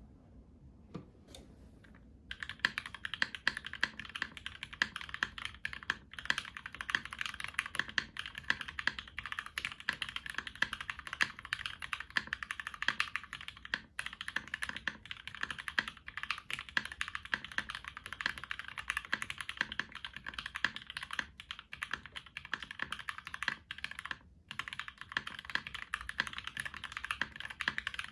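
Rapid, continuous typing on a zekk.works Ogre custom mechanical keyboard with Gateron Ink switches, a UHMWPE plate and GMK keycaps. The typing starts about two seconds in, with brief pauses twice.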